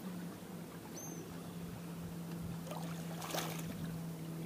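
A small fish dropped back into the river, splashing briefly about three seconds in, over a steady low electric hum from the boat's bow-mounted trolling motor.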